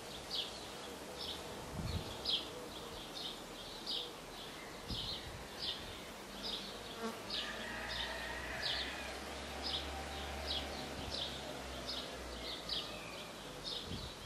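A cricket chirping steadily outdoors, short high chirps about twice a second.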